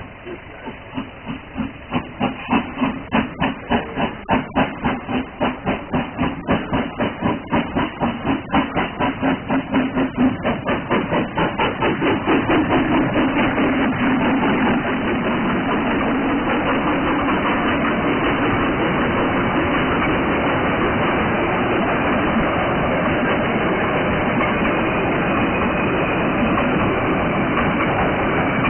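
Narrow-gauge steam locomotive of the Molli railway chuffing as it approaches, about two exhaust beats a second growing steadily louder; from about fourteen seconds in, as the engine goes by, the beats give way to the steady rolling clatter of its passenger carriages passing close by.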